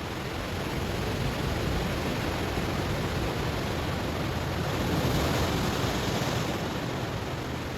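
Ocean waves washing onto a stony shore: a steady rush of surf that swells to its loudest about five seconds in, then eases back.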